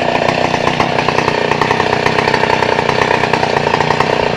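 Two-stroke chainsaw engine running steadily.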